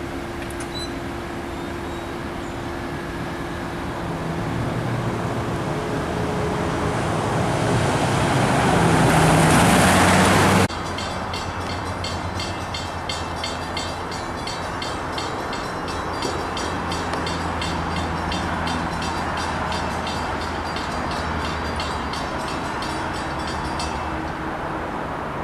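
A train passing close by: its noise builds to a peak about ten seconds in and drops off abruptly, then a steady rumble with fast, even clicking of wheels over the rails runs on until near the end.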